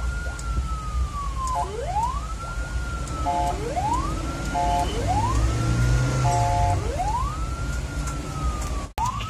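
Ambulance siren wailing while driving, heard from inside the cab: a tone that rises quickly and falls slowly, repeating about every one and a half seconds, over a low engine and road rumble. Three short steady beeps sound between the sweeps, and the audio drops out for an instant near the end.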